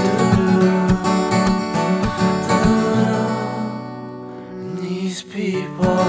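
Acoustic guitar strummed in a song's instrumental passage. About halfway through a chord is left ringing and fades down, then the strumming starts again near the end.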